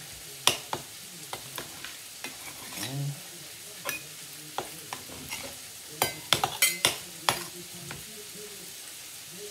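Peppers and onions sizzling steadily in a frying pan, with a chef's knife clicking against a cutting board as raw chicken breast is sliced into slivers. A quick run of knife clicks comes about six to seven seconds in.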